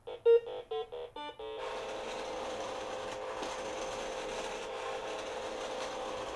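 A 1979 Milton Bradley Big Trak programmable toy tank: a quick run of electronic beeps from its keypad, then its battery-powered electric drive motors and gearbox whining steadily as it runs through the programmed moves.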